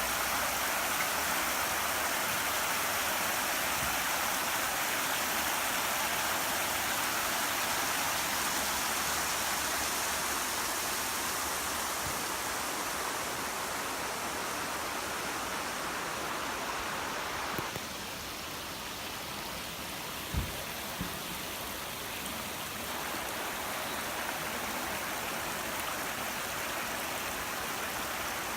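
Mountain river rushing steadily over rocks. The rush drops a little in level about two-thirds of the way through, and two faint knocks come shortly after.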